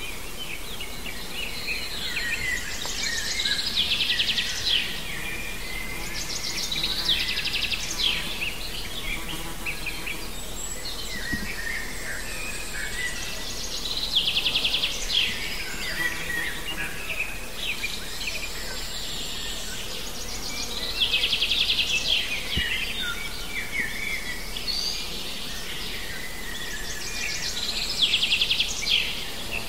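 Songbirds singing: a fast trilled song phrase comes back about every seven seconds, with shorter chirps from other birds between, over a steady faint background hiss.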